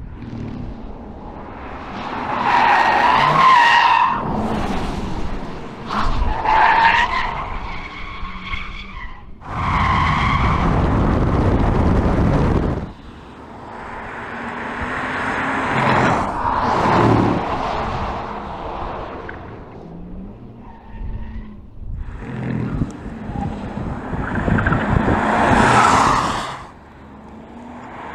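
Tyres of an all-electric 2024 Porsche Macan squealing under hard driving. It comes in about five loud swells a few seconds apart, with a steady rush of tyre and road noise in between.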